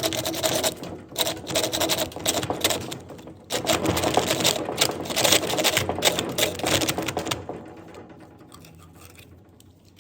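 A jigsaw blade spun in an electric drill, cutting into PVC pipe with a fast, rattling, rasping chatter. It breaks off briefly about three seconds in, starts again, then fades out over the last couple of seconds.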